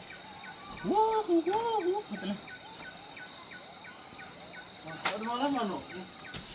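Steady, high-pitched chorus of night insects in tropical forest, with faint regular chirps under it. A short human vocal sound about a second in and another around five seconds break over it.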